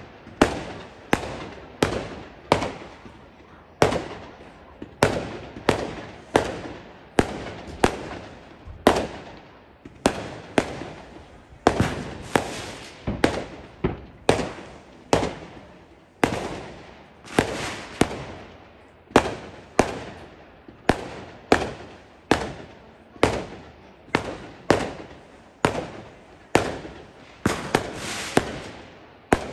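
Aerial fireworks going off in quick succession, about two sharp bangs a second with no real pause, each bang trailing off briefly as the stars burst.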